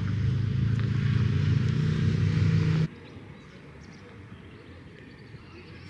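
A motor running steadily with a low hum, cut off abruptly about three seconds in, then a quiet outdoor background.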